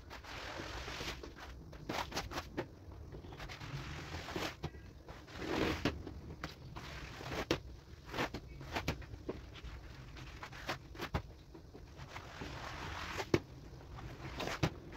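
Irregular wet taps, scrapes and spatters of a foamed rug being washed with a hose and squeegee, over a low steady rumble.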